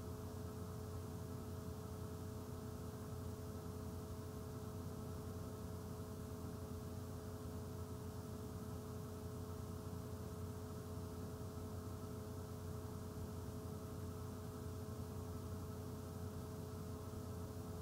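Steady electrical hum with a faint hiss, the recording's background noise. Two faint, unchanging tones sit above the low hum.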